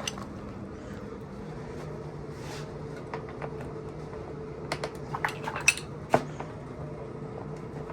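Light metallic clicks and clinks of tools and small hardware being handled while the fender is fitted, a quick cluster of them about five to six seconds in, over a steady low hum.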